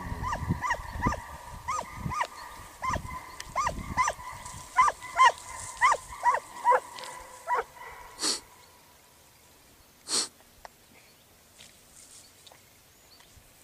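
Canine yelping: a run of short, high-pitched yelps, roughly two a second and unevenly spaced, that stops about eight seconds in. Two brief sharp noises follow.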